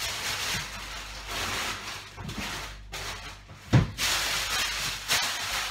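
Rustling and crinkling of plastic grocery packaging being handled. One loud thump comes a little past halfway.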